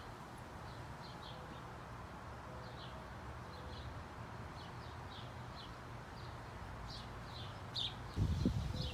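Small birds chirping over and over, short high chirps two or three a second, above a steady outdoor background hum. A louder low rumbling noise starts near the end.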